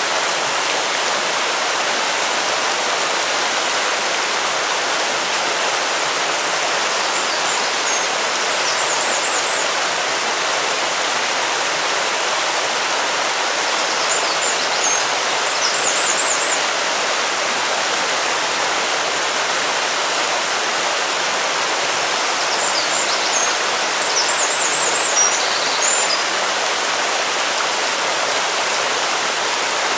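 River water flowing steadily, an even rushing sound. Three times, short runs of high chirps sound over it for a couple of seconds each.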